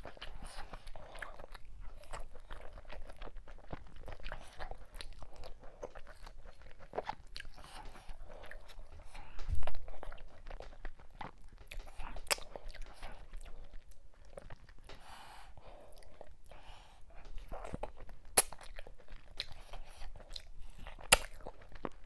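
Close-miked chewing and wet mouth smacking from eating fufu with ogbono soup by hand, a steady run of small clicks and smacks. There is a dull thump about halfway through and two sharp clicks near the end.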